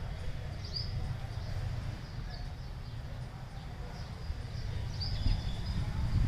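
Birds chirping: a handful of short, high calls scattered over a few seconds, over a steady low rumble.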